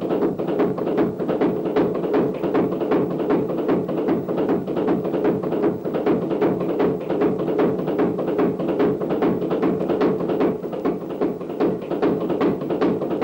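Soundtrack music with a fast, busy tapping beat over a steady low tone.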